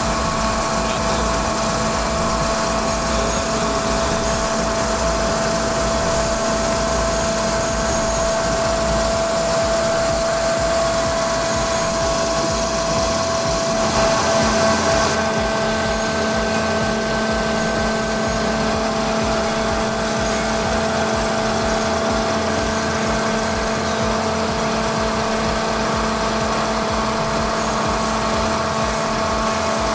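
Airman screw air compressor running steadily: a constant machine drone with several steady hum tones over an even rush of air and fan noise. The tone shifts slightly about halfway through, after which the controller shows the compressor running unloaded.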